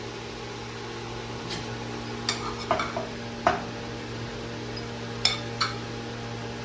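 A metal utensil clinking against a stainless-steel plate and pan as pieces of fried colocasia are served out: a handful of light, separate clinks between about two and six seconds in.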